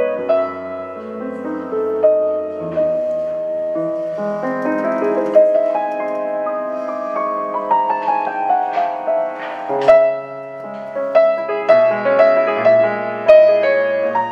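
Solo grand piano playing a flowing classical passage, with a quick run of notes falling in pitch that lands on a strong deep bass note about ten seconds in.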